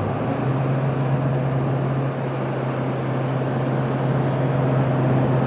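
Vehicle cabin noise while driving: a steady low engine and road hum.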